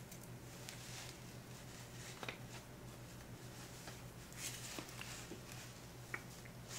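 Faint rustling and soft handling sounds of a stretchy nylon wig cap being pulled over the head and smoothed down by hand, with a low steady hum underneath.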